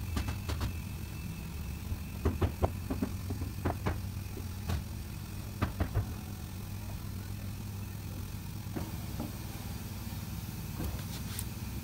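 Hand screwdriver clicking against the set screws and metal plate of a FritsJurgen bottom pivot hinge as the screws are tightened: scattered sharp metallic clicks, several in quick succession about two seconds in and again a little before halfway. A steady low hum runs underneath.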